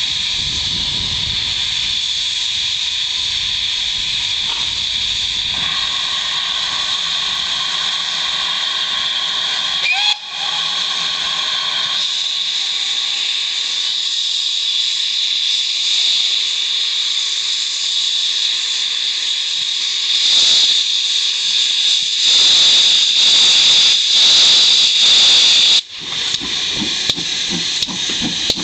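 GWR 2884-class 2-8-0 steam locomotive hissing steadily with steam blowing off while it stands. In the last third the hiss grows louder and starts to pulse as the open cylinder drain cocks blow, then it cuts off suddenly and slow exhaust beats begin as the engine moves off.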